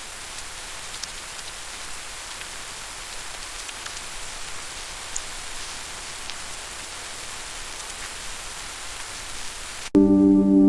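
Steady rain falling, an even hiss with a few faint drop ticks. Near the end, soft music with ringing, bell-like tones cuts in suddenly.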